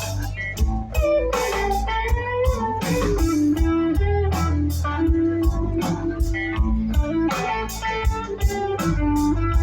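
Live rock-blues band playing an instrumental break: an electric guitar lead line over bass guitar and drums.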